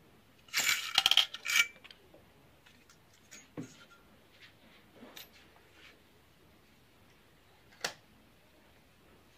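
Metal clinking and rattling from a Passap knitting machine's needle beds as the knitted piece is handled on them: a dense burst of clinks about half a second in, lasting about a second, then a few faint scattered clicks and one sharp click near the end.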